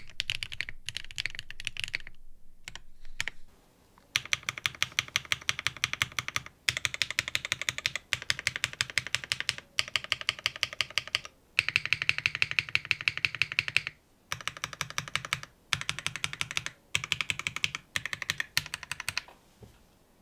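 Fast typing on a mechanical keyboard with lubed and filmed Gateron CJ linear switches on a carbon fiber plate with no foam, clacking in quick runs of keystrokes broken by short pauses. The runs stop about a second before the end.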